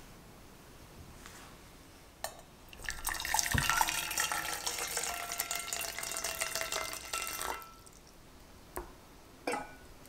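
Hot water poured in a steady stream from a kettle into an enamel pot for about five seconds, splashing as it fills. A couple of light knocks near the end as a ceramic ramekin is set down into the hot water bath.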